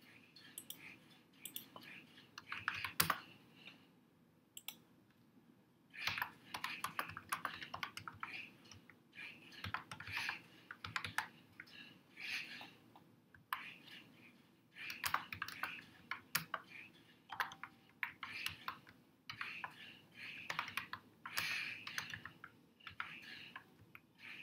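Typing on a computer keyboard: quick runs of keystrokes with short breaks, and a longer pause of about two seconds a few seconds in.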